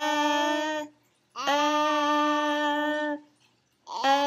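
A woman's voice singing long held notes on nearly the same pitch, three in a row with short breaks between, the last running on past the end.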